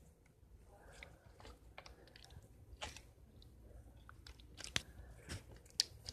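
Butter slime being squished and pressed by hand, giving faint, irregular sticky clicks and crackles, with a couple of sharper pops near the end.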